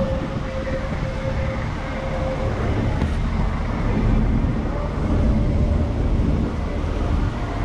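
Tour bus running down the road, a steady rumble of engine and road noise with wind, heard from the bus's upper deck. A faint steady whine fades out about two and a half seconds in.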